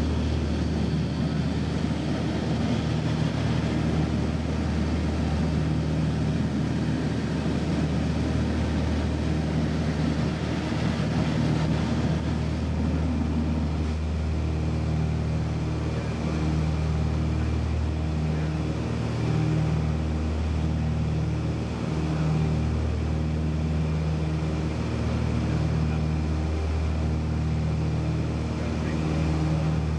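Small aircraft's engine and propeller droning steadily, heard from inside the cabin.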